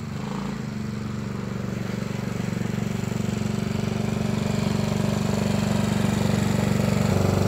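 Small engine of a children's mini ATV running steadily, getting louder as the quad drives closer.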